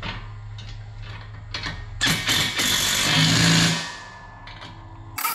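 Steel bolts and hardware clinking against a steel mower platform adapter, then a cordless impact wrench runs hard for about two seconds, driving a mounting bolt home.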